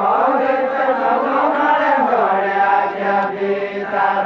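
Deuda folk song sung by a group of voices in unison, a slow, drawn-out chanted melody whose pitch drops about two seconds in and is then held.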